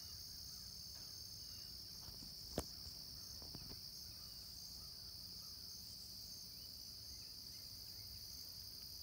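Field insects such as crickets singing in a steady, high-pitched chorus, with one sharp click about two and a half seconds in.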